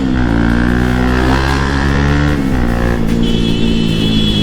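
Bajaj Pulsar NS200 single-cylinder motorcycle running on the road, mixed with background music whose pitches change in steps.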